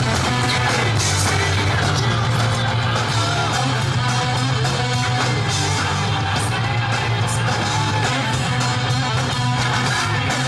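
Loud, steady rock music with guitars and a vocal over a heavy bass line.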